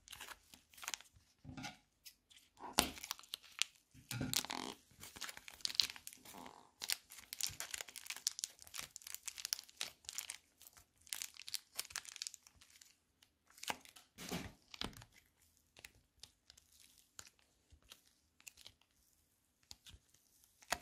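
Fluffy slime being pulled apart and squeezed by hand, making dense crackling and tearing sounds. The crackles are thickest through the first half, with another cluster at about 14 seconds, and thin out toward the end.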